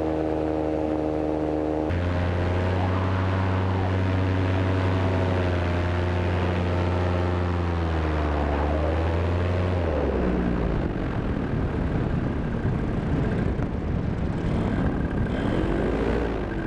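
Paramotor engine and propeller running in flight, its pitch shifting abruptly about two seconds in, then dipping and rising a few times as the throttle changes. A rushing noise grows under it in the second half.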